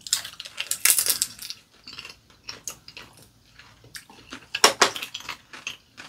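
Chopsticks clicking against porcelain bowls and plates during a meal, in two busier clusters of clinks, about a second in and near the five-second mark.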